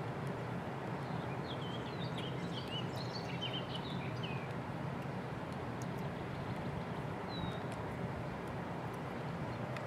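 Small bird chirping, a quick run of chirps about two to four seconds in and a single falling chirp near the end, over a steady outdoor rushing noise.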